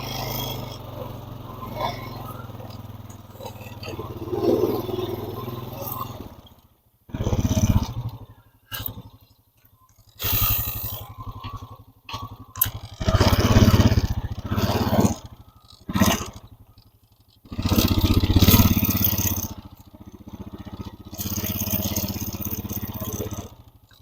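Small vehicle engine running at varying speed while backing a log on a log arch onto a portable sawmill, getting louder and softer in spells. The sound stops and starts abruptly several times.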